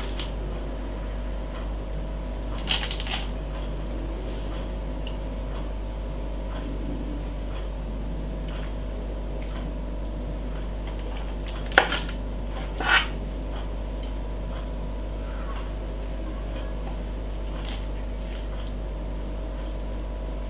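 Metal kitchen tongs clicking against a ceramic plate while food is set down, a few separate clicks with the sharpest about twelve seconds in, over a steady low hum.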